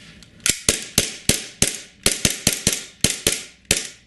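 WE G18C Gen4 gas blowback airsoft pistol fired on green gas with no BBs, in semi-auto, the slide blowing back on every shot. About a dozen sharp shots come in quick, uneven succession, a few a second, from about half a second in.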